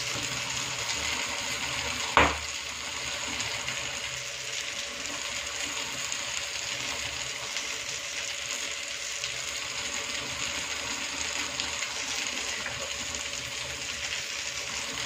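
Marinated chicken leg piece sizzling as it is held in tongs directly in an open gas-stove burner flame to char it, over the burner's steady hiss. A single sharp knock about two seconds in.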